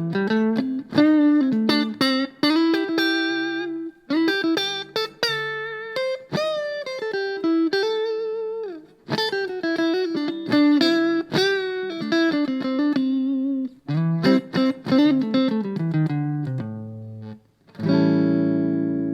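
Electric guitar played clean through a small practice amp: a melodic line of picked single notes with a few short pauses, some notes bent or shaken with vibrato, ending with a chord struck near the end and left ringing.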